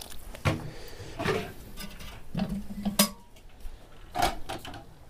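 Metal kettle and cookware knocking and clinking: four separate knocks about a second apart, the sharpest about three seconds in.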